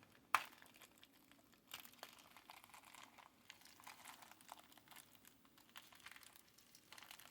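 Faint crinkling and scattered small clicks of packaging being handled and opened around a box of rotary encoders, with one sharp click about a third of a second in.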